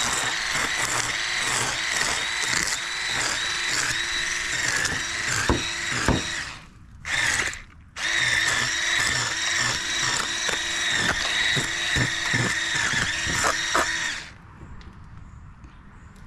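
Handheld electric fish scaler running with a steady whine, scraping the scales off a large sheepshead, with sharp clicks as it works. It stops briefly about halfway, starts again, and cuts off near the end.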